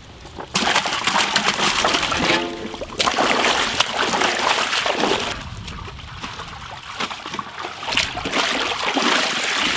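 Whole raw chickens splashing as they are tipped into a large aluminium pot of water and washed by hand. The water sloshes and splashes in loud spells, easing off for a couple of seconds midway.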